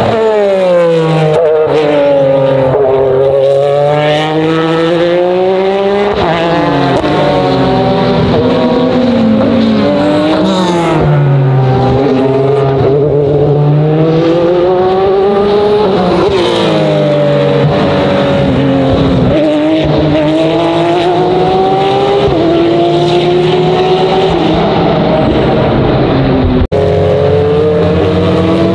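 Racing cars passing at speed one after another. Each engine climbs in pitch through the gears and then falls away as it goes by. The sound cuts out briefly near the end.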